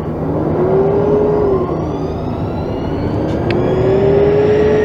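Semi trucks accelerating hard from a standstill under load. A diesel engine's revs climb, fall back about a second and a half in as it shifts up, then climb again through the next gear. A thin high whine rises steadily alongside, from the fuel cell truck's electric drive.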